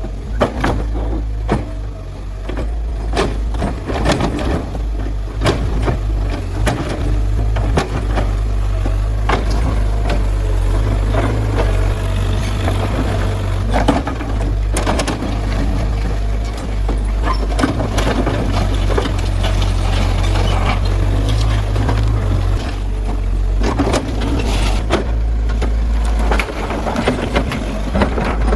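Kobelco SK100-1 excavator's diesel engine running steadily under load, with irregular cracks, knocks and crunches of debris being broken throughout.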